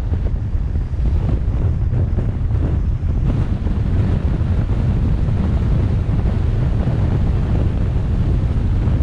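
Wind buffeting the microphone over the road rumble of a car driving along, a steady, loud low rumble without change.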